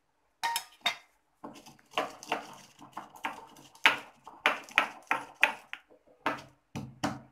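Stone pestle pounding roasted gram and fenugreek in a small stone mortar, crushing them to powder. It starts after a couple of light clicks about a second and a half in, then strikes steadily about two or three times a second.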